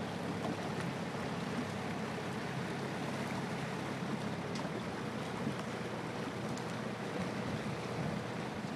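Tour boat's engine running steadily at low speed, with water washing along the hull and some wind noise.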